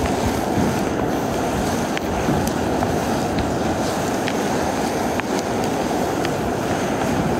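Portable gas camping stove burning on a high flame under a frying pan, a steady rushing noise with scattered small pops and ticks.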